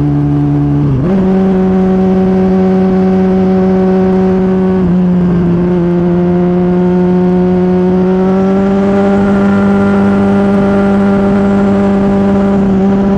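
Turbocharged 2023 Suzuki Hayabusa's inline-four engine on a full-throttle run. It jumps up in pitch about a second in as the throttle opens, holds a high steady note with brief dips around five and six seconds in, then climbs slowly. Wind rushes over the bike.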